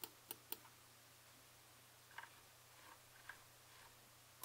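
Buttons on a TourBox Neo editing controller being pressed: three sharp clicks in quick succession at the start, then a few fainter, softer clicks from the controller.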